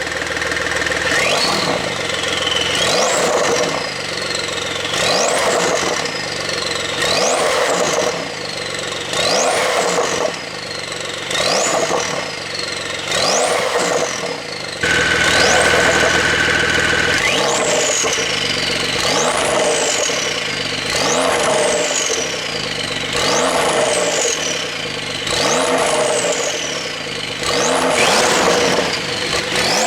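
Porsche 911 Carrera 4's twin-turbo flat-six revved repeatedly in short blips about every two seconds, the pitch climbing sharply and falling back each time. About halfway through, the revs are held steady for a couple of seconds before the blips resume.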